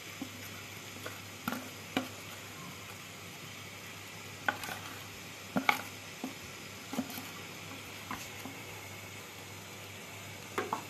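Thick batter being poured into a steel pan, heard as scattered light clicks and scrapes of a spoon and bowl about once a second, over a steady faint hiss.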